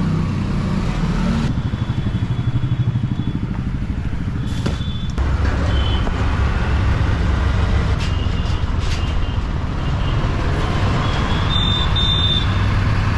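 Auto-rickshaw (tuk-tuk) engine running while under way through traffic, a low pulsing rumble. Two short high beeps come near the end.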